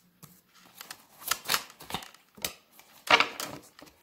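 A deck of tarot cards shuffled by hand: irregular papery rustles and slaps of the cards against each other, the loudest cluster about three seconds in.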